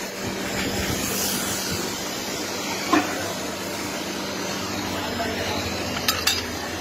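Steady background hum and hiss, with a sharp knock about three seconds in and two quick clicks near the end.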